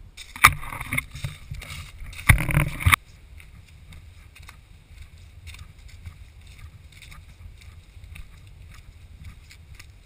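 Loud handling noise as the GoPro in its waterproof housing is turned and moved for the first three seconds, then footsteps crunching through dry fallen leaves at an even walking pace, muffled by the housing over a low rumble.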